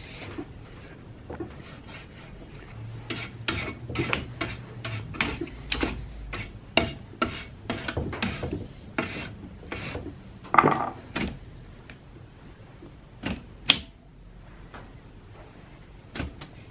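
Keys of a 1950s Olympia Deluxe manual typewriter being pressed one after another, the typebars clacking in an irregular run of sharp clicks that thins out to a few scattered strikes near the end.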